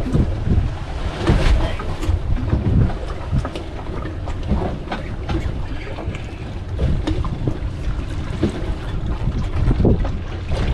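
Wind gusting across the microphone on an open boat at sea, with scattered small knocks and clicks.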